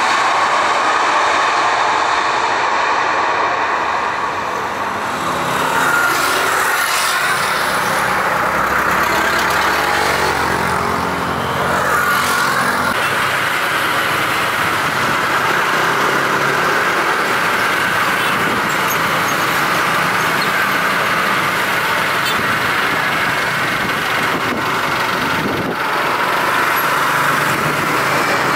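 Steady, loud roar of jet airliner engines landing: an Airbus A330-300 on its landing roll, then a Boeing 787-9 on final approach and touchdown. A shifting engine whine rises and falls through the middle.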